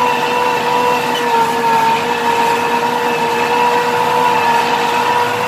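Tractor engine running steadily at working speed, heard close from the tractor, while it pulls a cultivator through tilled soil; a steady drone with a slight dip in pitch about a second and a half in.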